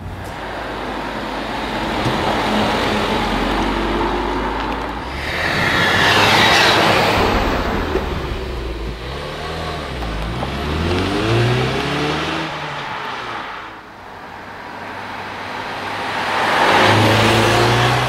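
2016 Ford Mustang driving past on the road, accelerating, its engine note rising and falling through gear changes. It is loudest as it passes about six seconds in and again near the end.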